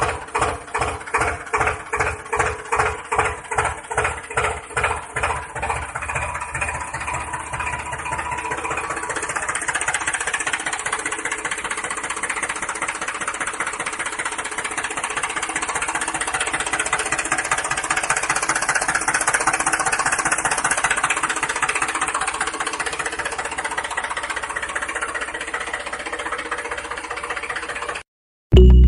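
Tractor engine running, laid over the toy's pictures: slow, even knocking thumps at about three a second that quicken after a few seconds into a steady, fast chug. It stops abruptly near the end.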